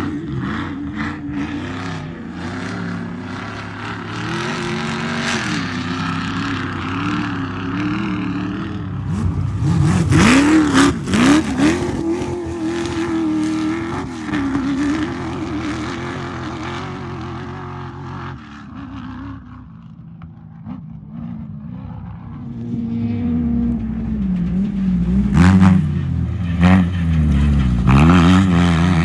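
Desert off-road race vehicles' engines revving and rising and falling in pitch as they drive past, with a loud rush of noise about ten seconds in and further rushes near the end.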